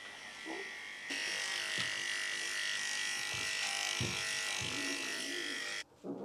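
Electric pet grooming clippers running steadily as they shave a cat's matted coat, a buzz with a high steady whine, getting louder about a second in and cutting off abruptly near the end. Right at the end a cat starts a low yowl.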